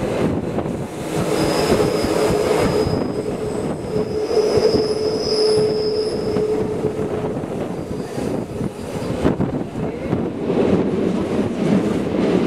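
Rhaetian Railway Bernina line train rolling on a curve, heard from the carriage, with the wheels squealing against the rail for several seconds from about a second and a half in over the steady running noise.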